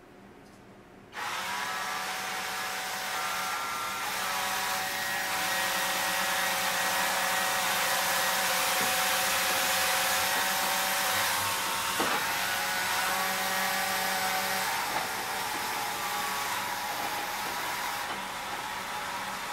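Electric motors of a homemade six-axis motion-control camera rig running as they drive the camera along its axes: a steady hiss with several whining tones that start, stop and shift in pitch. It starts abruptly about a second in, and there is a single click about twelve seconds in.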